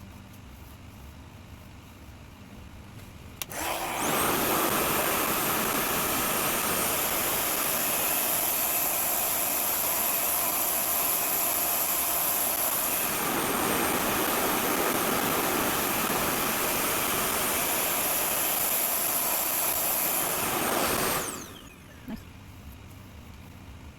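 RevAir reverse hair dryer's suction motor, switched on with a click about three and a half seconds in. It runs with a steady vacuum-cleaner-like rush and a high whine, then is switched off near the end, its whine falling away, followed by a light click.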